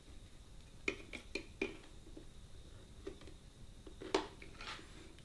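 3D-printed plastic cable holder being handled and fitted onto a DJI drone remote controller, with light plastic-on-plastic clicks and taps. There are about four in quick succession around a second in and a sharper click just after four seconds.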